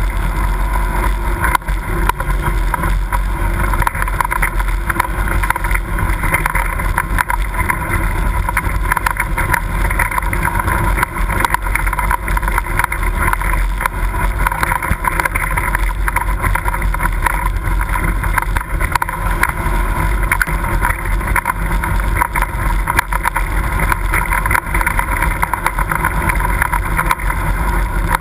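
ATV engine running steadily while riding a dirt trail, with crackling noise on the microphone.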